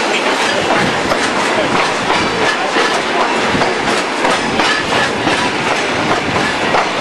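Train wheels rolling on the track, heard from an open coach window, with a steady rattle and a quick run of clicking clacks over the rail joints.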